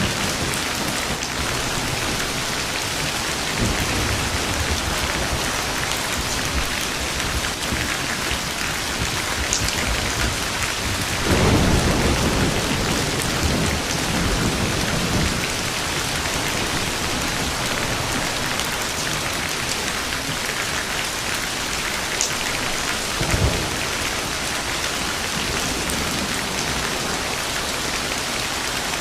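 Steady rain falling with rolls of thunder: a low rumble about three and a half seconds in, the loudest and longest roll starting about eleven seconds in, and a short one near the end.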